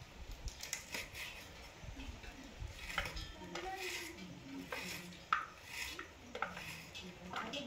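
Kitchen knife slicing a red onion over a stainless steel bowl, the blade clicking and clinking irregularly against the bowl's rim.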